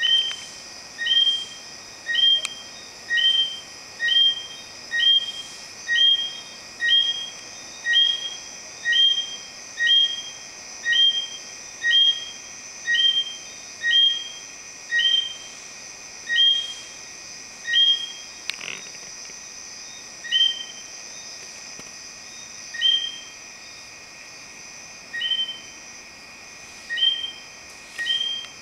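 An animal calling repeatedly: a short, clear two-pitched note about once a second, with a gap about three-quarters of the way through before it resumes, over a steady high-pitched background drone.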